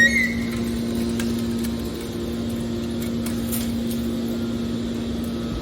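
Aluminum baler's hydraulic power unit running with a steady motor-and-pump hum, with a short high squeak right at the start.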